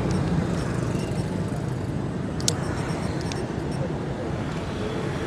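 Steady road traffic noise from passing motor vehicles, with a few faint clicks.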